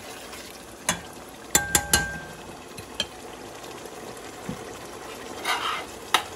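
Chorizo and tomato sauce sizzling and simmering in a stainless steel pot while a spoon stirs it, clinking against the pot several times; one knock about a second and a half in rings briefly, and a short scrape follows near the end.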